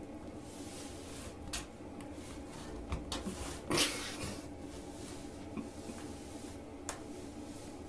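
A woven rag rug being dragged across a tile floor by a cat's paws from under a door: a few soft scrapes and taps, the loudest a short swish near the middle, over a steady low hum.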